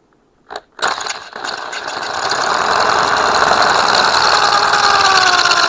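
Electric drill starting about a second in, after a couple of short clicks, and running steadily as its bit drills out the stripped bar-stud hole in a Stihl chainsaw's crankcase. Its pitch sags a little near the end as the bit bites.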